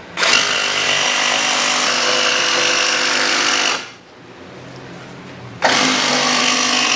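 Cordless jigsaw cutting through a thin plywood panel. It runs in two stretches, stopping for about two seconds in the middle before starting up again.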